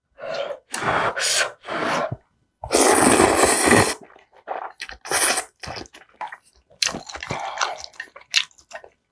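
Slurping kalguksu noodles in broth off a spoon: a few short slurps, one long loud slurp of over a second near the middle, then another short one. After it come many small wet mouth sounds of chewing.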